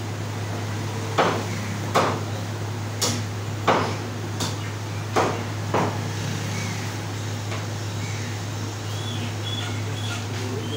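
About seven sharp knocks from a butcher's knife, roughly one a second, while goat meat is trimmed by hand. They stop a little before the middle, leaving a steady low hum.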